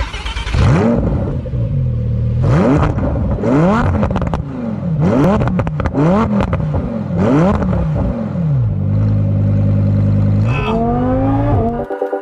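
Supercharged Lamborghini Huracan EVO V10 being revved while parked: a string of quick rev blips, roughly one a second, each rising and falling back. It settles briefly at idle, gives one last rising rev, and cuts off abruptly near the end.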